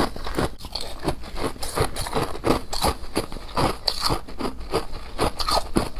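Someone biting and chewing crunchy colored frost: a fast, irregular run of crisp crunches.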